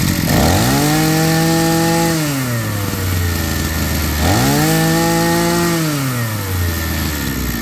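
Maruyama B300 brush cutter engine revved twice by its throttle: each time it climbs from idle to high revs, holds there about a second and a half, then winds back down to idle.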